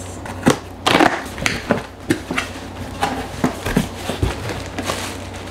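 Cardboard shipping box being handled and opened: irregular knocks and thumps of the box, with scraping and rustling of its flaps. The sharpest knock comes about half a second in and the loudest rustle at about a second.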